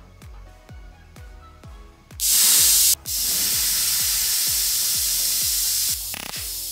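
Homemade plasma thruster firing with a loud, steady hiss that starts suddenly about two seconds in, breaks off for a moment, then carries on and drops in level near the end. Electronic music with a steady kick drum plays throughout.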